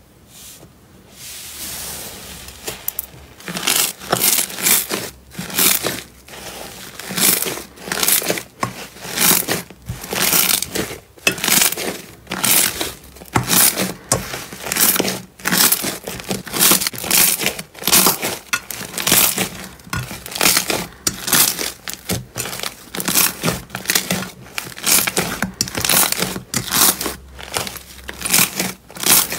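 Hands pressing, stretching and kneading thick slime in a glass dish, making crinkly, crackling squishes in repeated short bursts about once or twice a second. The bursts are fainter for the first couple of seconds.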